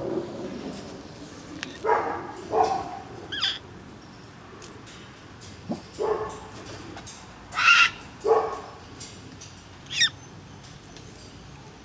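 Young umbrella cockatoos calling: a series of short squawks and cries, about eight in all, some sliding in pitch.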